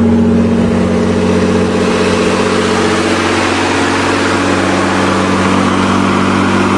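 The 3-litre V6 of a 1986 Nissan 4x4 pickup idling steadily with the hood open, freshly started after sitting unused for months.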